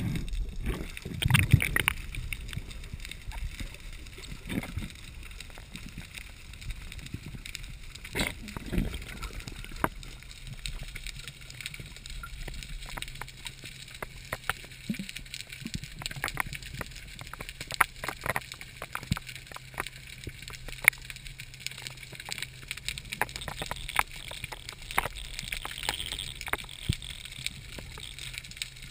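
Underwater ambience heard through a diving camera: water moving past the housing, with swells in the first couple of seconds and again around eight seconds, and scattered sharp clicks and crackles throughout. A faint steady low hum comes in about ten seconds in.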